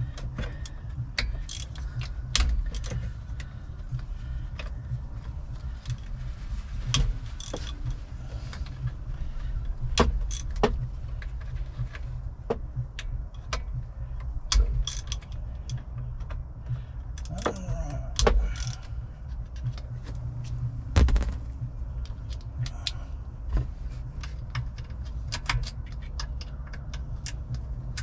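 Scattered clicks and metallic clinks of hand tools working on a truck's steering column as T30 Torx screws are worked out, over a steady low hum.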